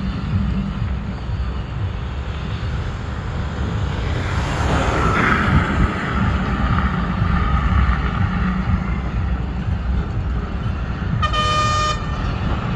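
Hyundai 210 excavator's diesel engine running steadily, growing a little louder about four seconds in. A short horn toot sounds once, near the end.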